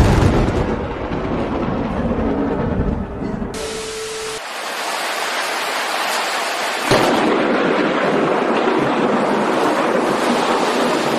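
Thunder rumbling over heavy rain, with a sudden sharp crack of a close lightning strike about seven seconds in.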